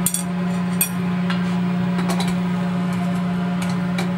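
Sharp metal clicks and clinks as the lid assembly of a stainless steel closed-cup flash point tester is handled and fitted onto its cup: two clear ones near the start, then fainter ones. A steady low hum sits underneath.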